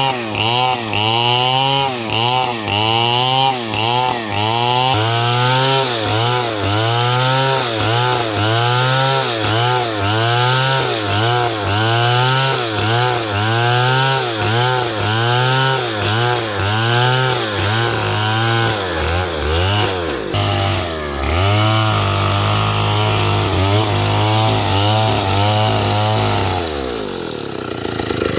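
Stihl chainsaw cutting wood, its engine speed rising and falling in a regular cycle about three times every two seconds. Later the pitch steadies, and near the end the saw drops back to idle.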